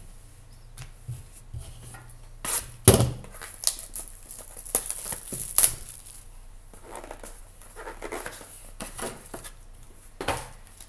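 Hands handling small cardboard trading-card boxes and a foil card pack on a tabletop: a series of sharp knocks and clicks, the loudest about three seconds in, with light crinkling of the foil wrapper.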